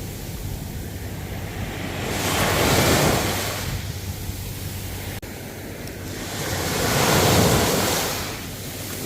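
Ocean waves breaking on the shore, two waves swelling and fading away, about four to five seconds apart.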